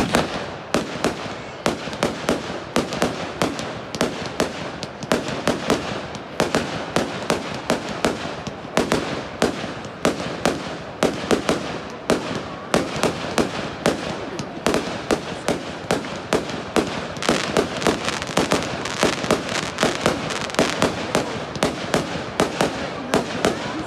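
Aerial fireworks bursting in a rapid, continuous barrage, two or three sharp bangs a second with crackling in between.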